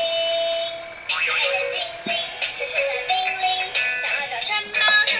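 Sound chips of toy ambulance miniatures playing tinny electronic tones and melodies, several overlapping and shifting in pitch.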